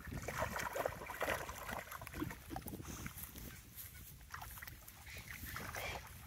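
A dog wading through shallow pond water, its legs splashing and sloshing in irregular bursts, busiest in the first second or so and again near the end, over a steady low rumble.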